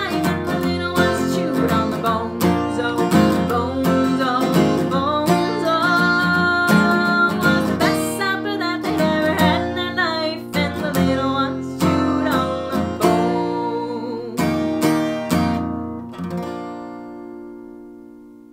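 Acoustic guitar strummed as accompaniment to a woman singing. Near the end a last chord rings out and fades away.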